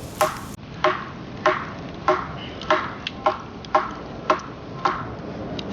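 Batoning: a wooden baton striking the spine of a knife driven into a piece of firewood, a run of about ten sharp knocks roughly every half-second, each with a brief metallic ring.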